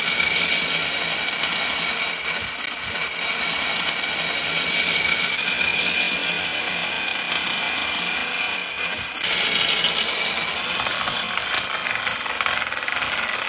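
Many glass marbles rolling and clacking along a wavy groove in a wooden track: a dense, steady rattle of marble against marble and wood.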